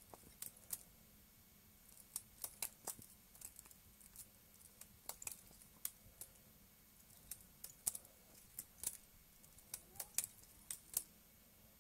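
Balisong comb trainer flipped open and closed quickly, its handles and comb clacking together in a string of sharp, irregular clicks.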